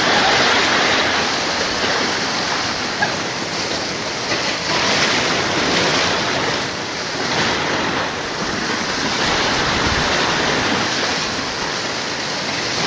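Floodwater rushing in a strong current: a steady, loud rush of moving water.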